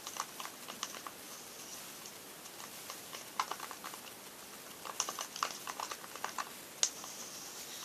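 Slime being stirred in a small pot as talcum powder is worked in: the mixing utensil gives irregular light clicks and taps against the pot, in scattered clusters.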